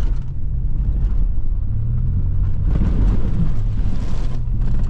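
Truck driving on a rough dirt road: a steady low rumble of engine and road noise, with rougher gravel and rattle noise swelling for a second or so in the middle.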